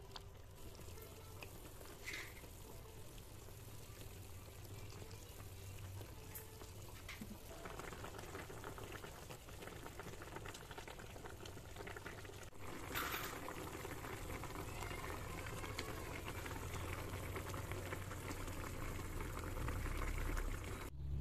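Tilapia pindang broth bubbling at a boil in a pan, slowly getting louder, with a couple of brief taps about two seconds and thirteen seconds in.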